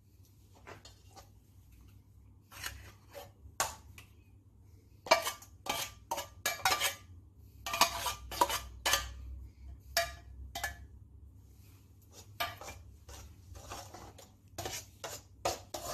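Metal spoon clinking and scraping against a bowl and a jar as cream is scooped out and stirred in, in a series of irregular clicks and short scrapes, busiest near the middle.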